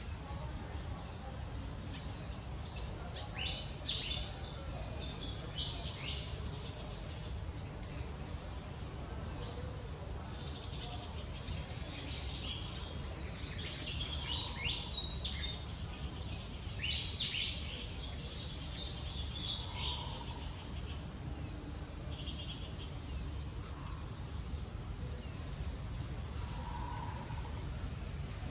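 Outdoor ambience: a steady high insect drone, with bursts of short, high, falling chirps around 3 to 6 seconds in and again from about 11 to 19 seconds in, over a low rumble.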